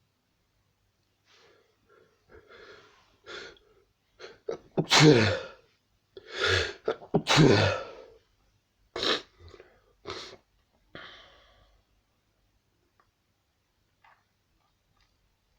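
A person sneezing repeatedly: short catching breaths build up, then three loud sneezes close together about five to eight seconds in, followed by a few smaller sneezes or sniffs.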